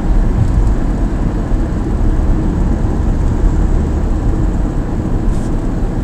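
Steady low rumble of a car driving at speed, tyre and engine noise heard from inside the cabin.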